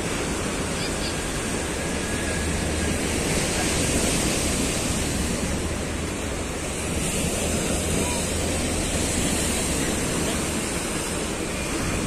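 Heavy sea surf breaking and washing over concrete breakwater blocks: a continuous, steady rush of waves with gentle rises and falls in loudness.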